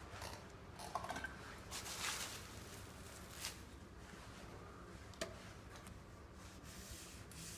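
Quiet hand-tool work on pine: a hand plane's blade scraping off a shaving in one clear stroke about two seconds in, with a shorter one after it, and light clicks and knocks of wood and tool between.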